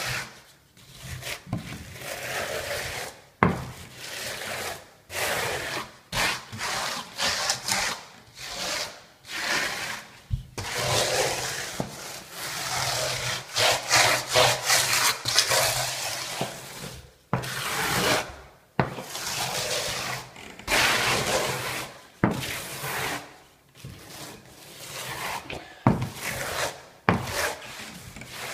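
Metal trowel scraping over fiberglass mesh and wet tile adhesive in repeated strokes, pressing the mesh into the adhesive.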